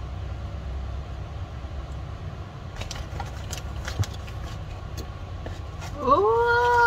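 Steady low rumble with a few light clicks from handling a compact camera and pressing its buttons. About six seconds in, a person's voice rises into a high, held whine-like tone.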